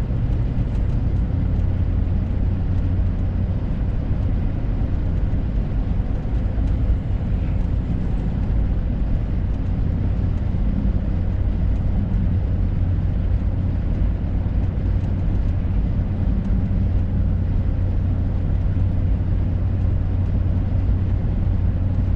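Steady engine and road drone heard inside the cab of a Ford F-350 pickup cruising along, a low even hum.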